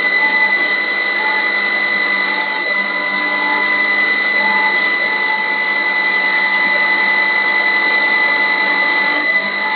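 Automatic-feeder wood turning lathe running, a steady mechanical noise with a constant high whine.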